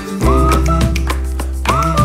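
Background music with pitched melody lines and a steady, evenly repeating beat.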